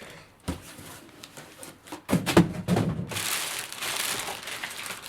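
Knocks and thuds of a large carrying case being handled and set down, then a steady crinkling rustle of packaging from about three seconds in.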